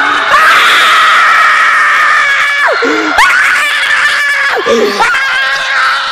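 Young men screaming in excitement at a half-court basketball shot: three long, loud yells one after another, each falling off at the end, with some laughter mixed in.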